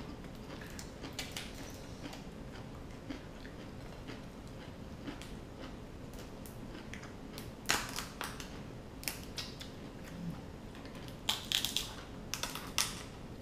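Steamed king crab shell cracking and snapping, a few sharp cracks about two-thirds of the way in and a quick cluster of them near the end.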